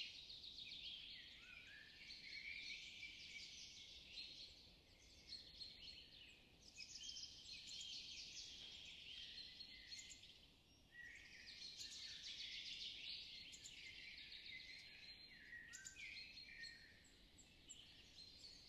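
Faint songbirds singing and chirping almost without a break: many short high chirps, quick trills and sliding notes, with a couple of brief lulls.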